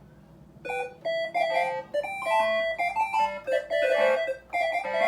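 Piano playing a quick run of short, bright notes as an imitation of video-game music, starting a little under a second in.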